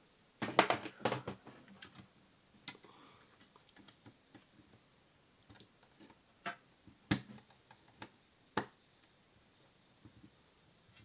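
Clicks and taps of a hand tool working the metal clip that holds the circuit board in a car stereo's chassis: a quick cluster about half a second in, then single clicks a second or more apart.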